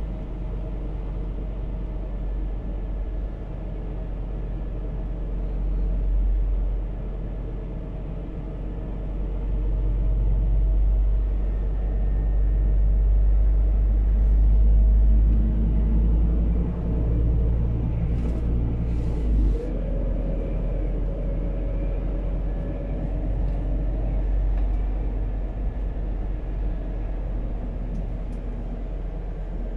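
Scania P280 truck's biogas engine running under way, heard from inside the cab as a steady deep rumble mixed with road noise. The engine note swells louder around the middle and steps up in pitch about two-thirds through, with a couple of short hisses just before.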